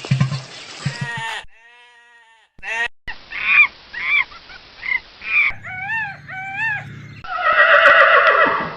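Farm animal calls in short clips cut one after another, mostly honking calls. A run of honks about half a second apart is followed by two longer calls, then a loud, dense call near the end.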